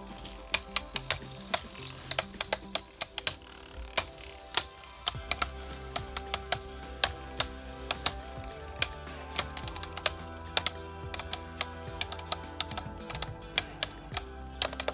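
Two 3D-printed Beyblade tops spinning and clashing in a stadium: many irregular sharp clicks of collisions, over background music.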